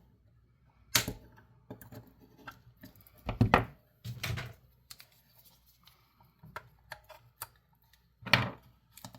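Hand tool clicking and knocking against metal battery terminal tabs and the plastic battery compartment while the tabs are bent to work them loose. Irregular sharp clicks with small ticks between, the louder knocks about one second in, at three to four and a half seconds, and again just past eight seconds.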